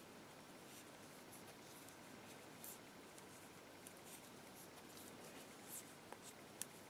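Faint clicking and light scraping of knitting needles and yarn as stitches are knitted: a few soft, scattered ticks with one sharper click near the end, over a low room hiss.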